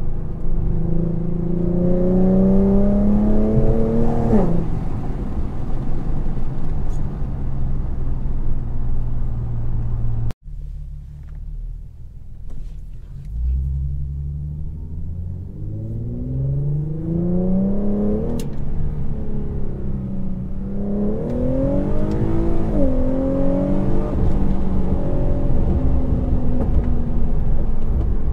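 Infiniti Q50's VQ V6 engine and exhaust heard from inside the cabin while accelerating through the gears. The engine note climbs for about four seconds and drops at an upshift, then holds steady. After a sudden cut about ten seconds in, it rises again in several pulls, each broken by a shift.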